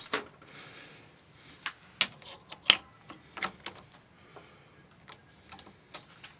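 Irregular light metallic clicks and taps of a small brass piston and a steel parallel being handled against the jaws of a lathe chuck, the sharpest about two and a half seconds in.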